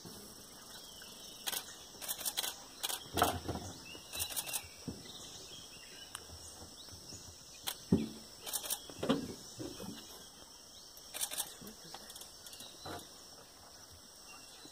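Scattered clicks and knocks from a handheld camera being handled, over a faint, steady high drone of insects.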